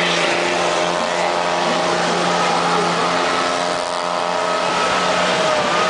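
Ford F-250 pickup's engine held at high, fairly steady revs while its wheels spin in mud, doing donuts.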